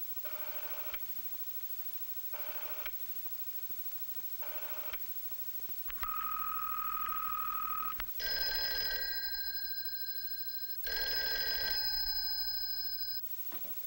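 Telephone bell ringing in two long rings of about two and a half seconds each, in the second half. Before them come three short, faint tones about two seconds apart and then a steady tone lasting about two seconds.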